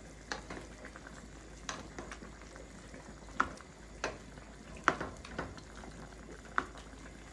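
Stew chicken simmering in a stainless steel sauté pan, a steady faint bubbling, while a ladle is worked through the sauce and knocks against the pan about seven times.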